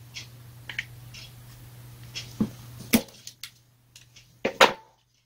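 Pliers working on the wire connectors inside an angle grinder's plastic housing, unplugging the stator leads: scattered small clicks and knocks, the sharpest about three seconds in and a pair near the end.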